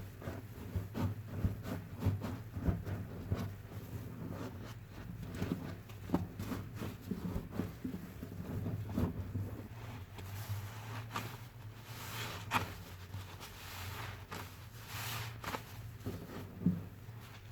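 Sponge soaked in soapy foam and fabric softener being squeezed over and over: irregular wet squelches and crackling suds, with a few longer, louder squishing hisses in the second half.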